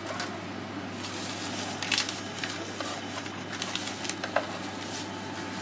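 Steady hum and hiss of stall background noise, with a few sharp clicks and taps as the pastry is handled with metal tongs and a paper wrapper: one loud click about two seconds in and a quick cluster a little before the end.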